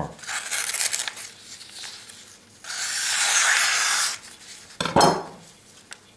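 A knife blade slicing through a sheet of paper, two long hissing cuts, to test how sharp the edge is.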